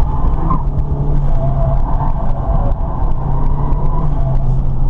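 Ford Fiesta ST engine running hard under load, heard from inside the cabin over a low road rumble, with a faint wavering tyre squeal above it.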